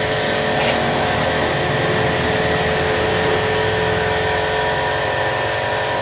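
Semi-commercial 155-bar pressure washer running, its motor and pump giving a steady hum under the hiss of the high-pressure water jet blasting mud and moss off a floor.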